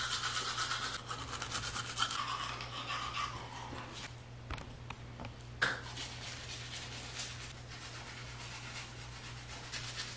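Teeth being brushed: a toothbrush scrubbing back and forth in a foamy mouth in quick repeated strokes, with one short louder sound a little under six seconds in.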